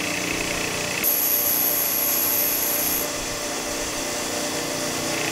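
Bench grinder running while a dull twist drill bit is sharpened against its grinding wheel: a steady motor hum with grinding noise, and a thin high-pitched whine from about one to three seconds in.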